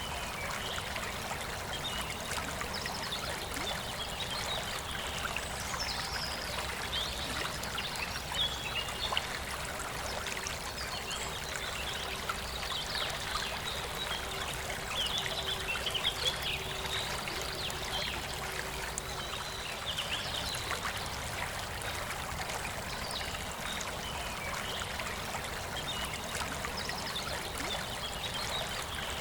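A forest stream flowing with a steady rushing and trickling. Birds sing in short chirping phrases over it, most often in the middle stretch and again near the end.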